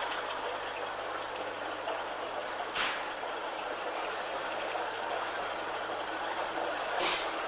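Steam road roller moving slowly, with a steady hiss from its engine and two short, sharper hisses about three and seven seconds in.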